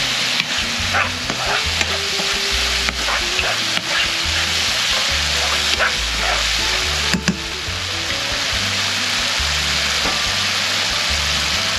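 Onions, garlic and tomatoes sizzling steadily in a frying pan. For the first several seconds they are being stirred, with scattered scrapes and knocks of the utensil against the pan; after that the sizzle goes on alone.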